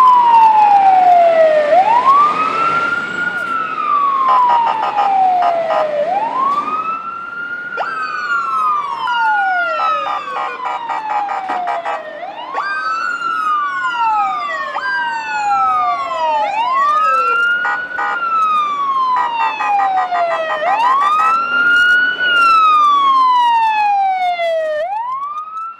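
Fire truck siren wailing. Each cycle is a quick rise and a slow fall, repeating about every four seconds. A second wail overlaps out of step in places, and a fast pulsing sound comes and goes.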